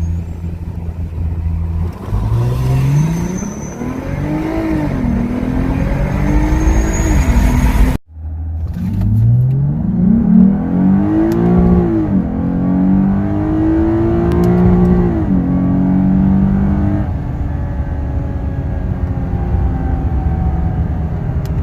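2007 Lexus IS350's 3.5-litre V6 accelerating hard, its pitch climbing and then dropping back at each upshift, twice over. It settles to a steadier cruise near the end. The engine is running a freshly flashed RR Racing ECU tune that is still in its learning phase.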